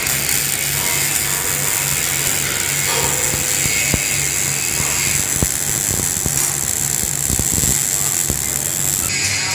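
MIG welding arc giving a steady, loud crackle and sizzle as a bead is run, with frequent sharp pops of spatter.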